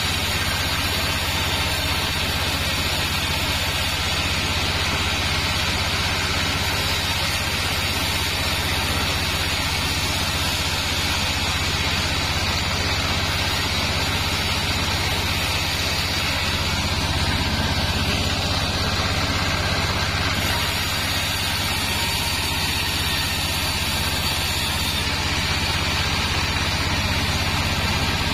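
Band sawmill running steadily: the stationary engine that drives it drones without a break, with the noise of the band blade cutting lengthwise through sengon wood on top.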